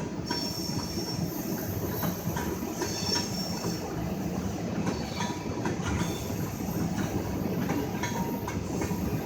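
Freight train rolling by on the rails, a steady rumble of wheels on track with a faint high wheel squeal at the start and again about three seconds in.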